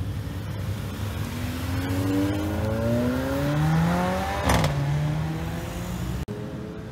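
Mercedes-AMG GLA 45's turbocharged four-cylinder accelerating away, its pitch rising through a gear. A sharp crack comes on the upshift about four and a half seconds in, and then the engine settles to a lower, steady note.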